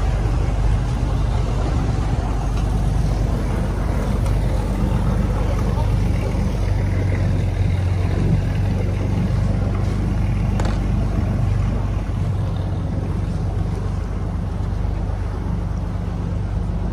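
Tour boat's engine running steadily under way, a low drone that grows stronger about six seconds in, with water rushing along the hull.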